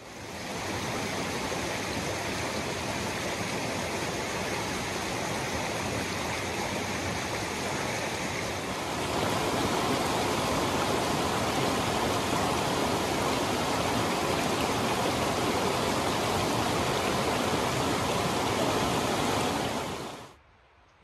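Shallow mountain creek running over a rocky bed: a steady rushing, louder from about nine seconds in, that cuts off suddenly near the end.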